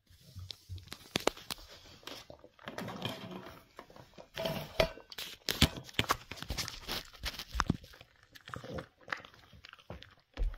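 A Cavalier King Charles spaniel crunching and chewing a hard treat, a run of irregular crackling and clicking noises from its mouth.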